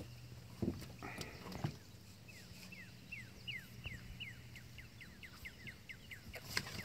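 A bird singing a run of short downslurred whistled notes that come faster and faster over about four seconds. A few soft knocks come before it.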